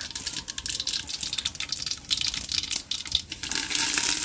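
Mustard seeds crackling and spluttering in hot cooking oil, a dense run of small pops over a frying hiss. The sizzle grows louder near the end as curry leaves go into the oil.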